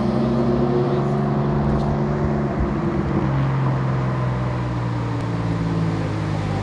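Porsche 911 (996) Carrera 4's flat-six engine idling steadily through its original exhaust with the catalytic converters removed. About two and a half seconds in, the pitch wavers briefly and settles slightly lower.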